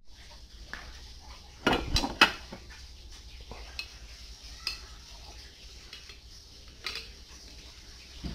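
Short lengths of ribbed steel rebar clanking against each other and against metal tools as they are picked up: a burst of loud clinks about two seconds in, then a few scattered lighter clinks.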